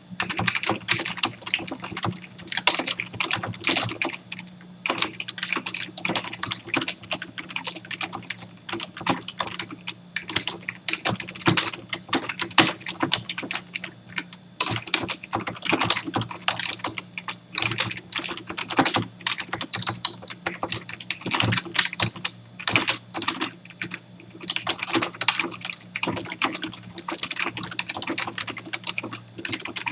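Fast, continuous typing on a computer keyboard, a dense run of key clicks broken by brief pauses about every ten seconds. A steady low hum runs underneath.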